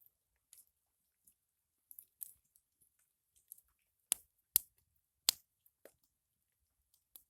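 Apple-wood campfire crackling: scattered small crackles, with three sharp pops in quick succession a little past the middle.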